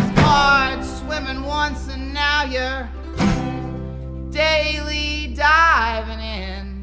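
Folk-rock band music with guitar and a wavering, sliding lead melody line, getting quieter toward the end.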